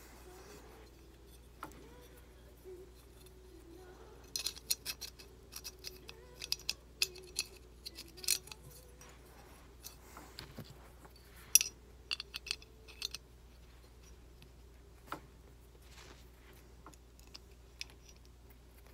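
Small steel parts of a Kimber Ultra Plus CDP, a compact 1911-pattern pistol, clicking and tapping as they are handled and fitted during reassembly. The clicks come in a quick irregular cluster from about four seconds in until about thirteen seconds, with one sharper click in the middle, then only a couple of isolated ticks.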